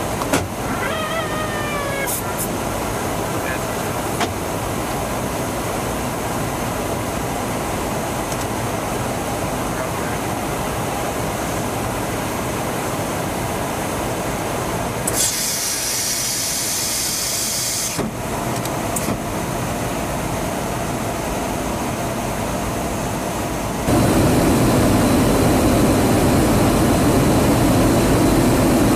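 Steady roar of engines and rushing air from a large military aircraft in flight during aerial refueling. A burst of high hiss comes about halfway through. A few seconds later the roar steps up, louder and deeper.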